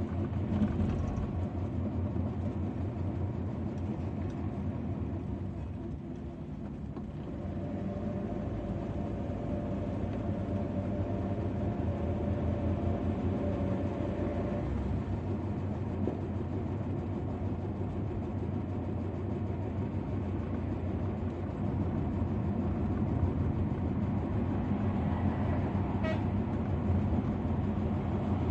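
Car engine and road noise heard from inside the cabin while driving: a steady low hum that dips briefly about six seconds in.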